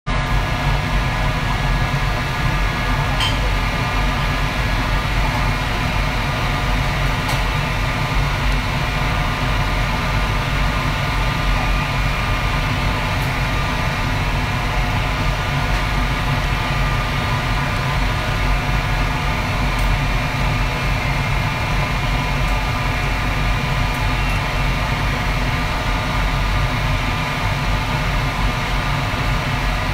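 Commercial wok stove running: a steady, even noise with a deep rumble, from the gas burner and kitchen ventilation, with a few faint clicks.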